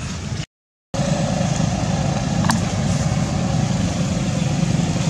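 A steady low outdoor rumble that drops out for a split second about half a second in, then carries on, with a couple of faint sharp clicks.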